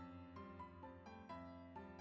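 Soft background piano music: a steady run of single notes, about three to four a second.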